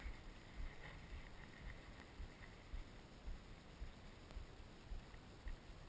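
Faint water lapping against a boat's hull and light wind on the microphone, with soft irregular low thumps.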